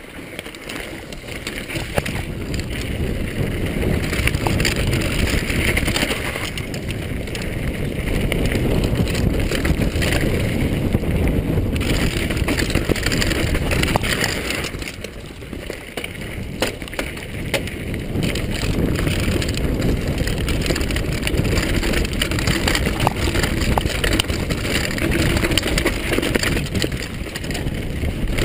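Downhill mountain bike descending a dirt singletrack: its tyres rumble, wind buffets the microphone, and frequent small clicks and rattles come from the bike over bumps. The noise eases briefly about halfway through.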